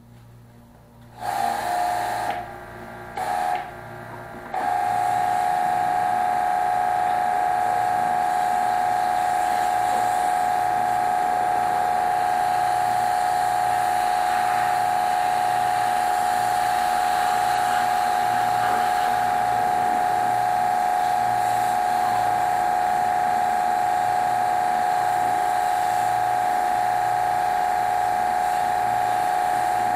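Small electric pressure washer running with a steady high whine. It starts about a second in, cuts out and restarts twice in short bursts, then runs without a break from about four seconds in.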